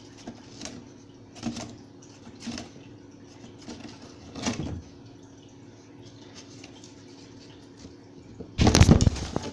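A cat pawing at a cardboard box through a slit: a few short scratchy scrapes of paw on cardboard, then a loud clatter of the box about a second before the end.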